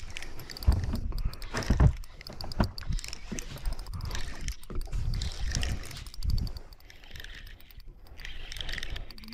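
Irregular low rumbling and thumps of wind buffeting the microphone on a small boat at sea, with water against the hull. The strongest gusts come in the first few seconds.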